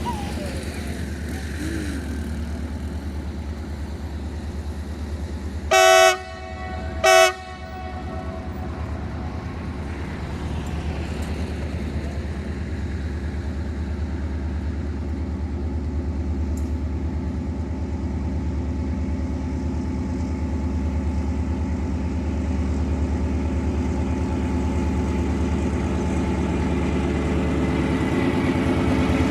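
Diesel freight locomotive sounding its horn in two blasts, a longer one about six seconds in and a shorter one a second later, over a steady low engine rumble that slowly grows louder as the train approaches.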